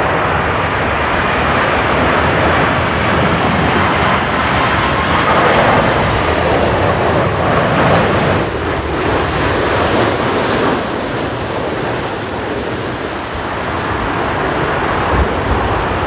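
Airbus A330-300's twin Rolls-Royce Trent 700 jet engines on final approach, passing low and close: a steady jet roar that builds to its loudest around the middle, then eases off. There are a couple of brief low thumps near the end.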